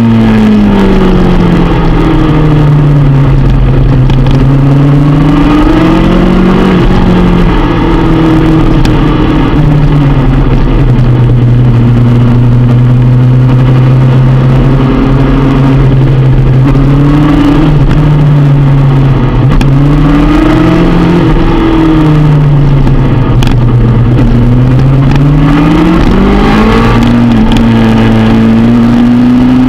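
Onboard sound of a motorcycle engine lapping a race track, its revs falling and rising with the throttle and gear changes through the corners, over constant wind rush. The pitch drops in the first few seconds, holds low through the middle, and climbs again near the end.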